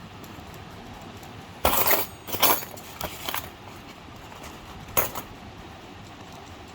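Small toy construction-kit parts clinking and clattering as they are handled, in a few short bursts about two, two and a half, three and five seconds in.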